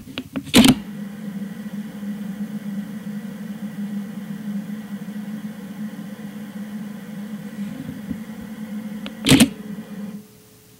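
A Nikon 18-55mm VR II zoom lens on a Nikon D3300 in Live View gives a steady hissing hum, a fault heard only on this lens and not on the owner's other lenses. The hum stops suddenly near the end. Two loud camera clicks sound, one about half a second in and one shortly before the hum stops.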